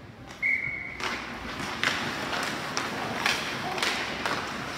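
Ice hockey play after a faceoff: skates scraping on the ice with several sharp stick and puck clacks. A brief steady high tone sounds about half a second in, before the play noise starts about a second in.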